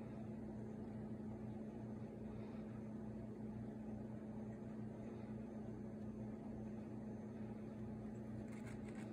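Faint, steady machine hum with a constant low tone over a soft noise floor, with a few faint ticks near the end.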